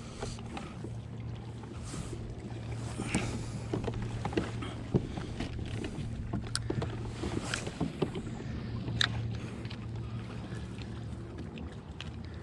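Sounds aboard a fishing kayak on the water: a steady low hum with many small scattered clicks and knocks over a light wash of water and wind.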